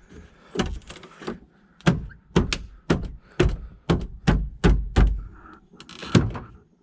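A quick series of dull thuds and knocks, about two to three a second: a plastic interior trim panel in a Volvo V70's cargo area being pushed and knocked into its clips.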